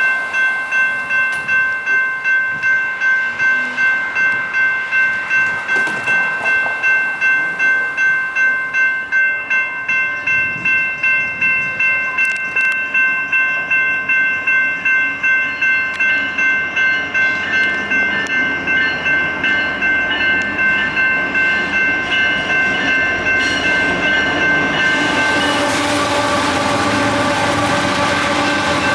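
Railroad grade-crossing warning bell ringing steadily at about two strokes a second. About 25 seconds in, an approaching train's horn sounds and stays on, louder than the bell.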